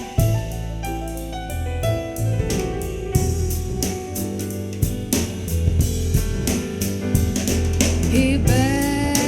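Soul-jazz music with bass, drum kit and keyboard, and a sung voice holding a wavering note that comes in near the end.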